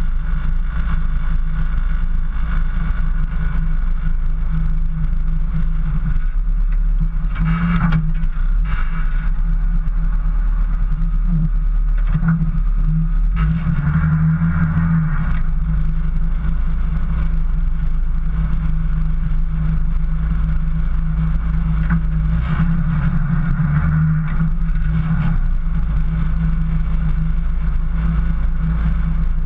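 Off-road 4x4's engine running steadily as it drives through deep snow, its note shifting with load about 13 and 22 seconds in.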